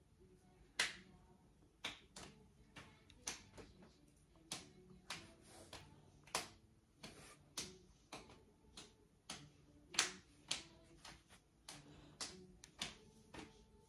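Comb and fingers working through thick, coiled hair close by: a string of sharp clicks and crackles, about one to two a second, uneven, with a louder snap about a second in and another about ten seconds in.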